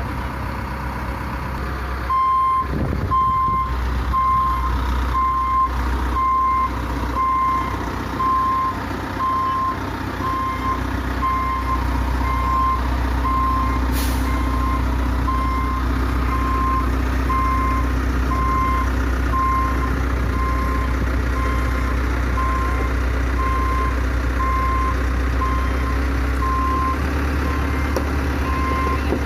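Caterpillar 426F2 backhoe loader's diesel engine running steadily while its reversing alarm beeps about once a second, starting about two seconds in. A few knocks and clunks are heard in the first several seconds.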